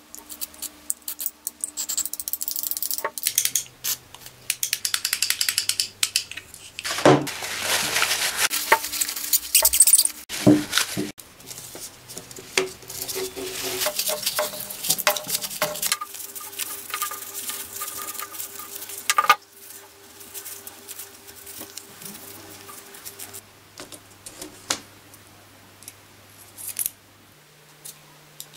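Small plastic and metal parts of a dismantled electric drill being handled and wiped by hand: scattered clicks, taps and light clatter. A louder stretch of noisy rustling comes about seven to ten seconds in.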